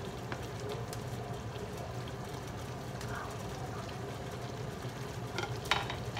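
Chicken afritada sauce simmering in a skillet under a steady low hum, as a slotted spoon stirs through the chicken and potatoes with small scattered clicks. A couple of sharp knocks near the end.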